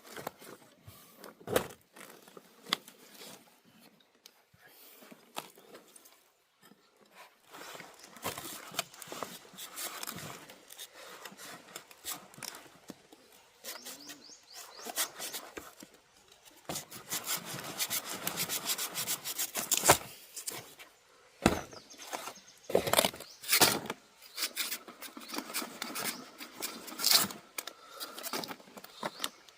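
Wood being worked by hand: scraping and rubbing strokes with scattered knocks, busiest in the second half.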